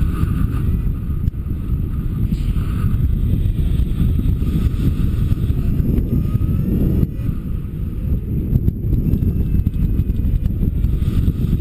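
Steady rumble of rushing air on the camera's microphone from a paraglider's airflow in flight.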